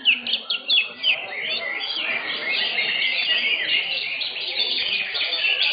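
Several caged greater green leafbirds (cucak hijau) singing at once in rapid chirps and trills. The first second or so holds separate sharp chirps, then the song becomes a continuous tangle of overlapping phrases.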